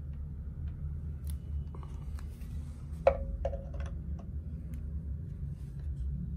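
Metal record clamp being set onto the spindle of an Audio-Technica turntable over a vinyl record: light handling clicks, then a sharp metallic clink with a short ring about three seconds in and a second, softer ringing tap just after.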